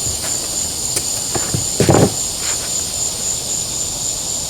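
Crickets chirping steadily in a high, even band. About two seconds in there is a short louder sound from the razor blade cutting through the styrofoam.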